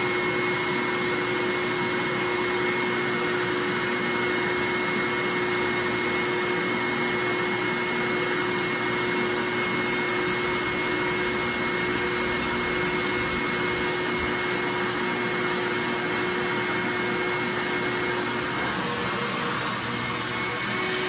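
Steady mechanical hum of a running motor or blower, even throughout. Faint high crackling and ticking comes in for a few seconds near the middle.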